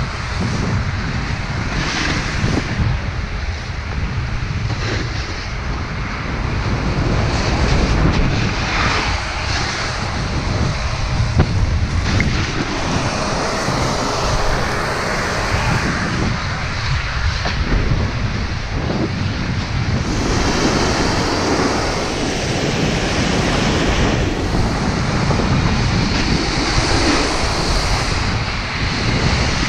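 Wind buffeting the microphone with a continuous rushing noise as a snowboard rides down a slope, the board's base and edges scraping over fresh snow.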